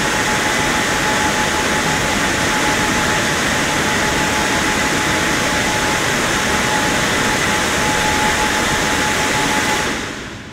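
WashTec SoftCare2 Pro gantry car wash's drying blowers running as a steady loud rush of air with a thin whine. They switch off about ten seconds in as the gantry finishes its pass.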